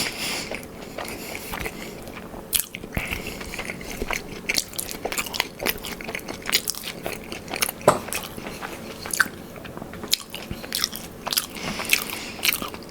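A person biting and chewing crispy buffalo-sauced cauliflower wings, heard close up: irregular crunches and wet mouth clicks throughout.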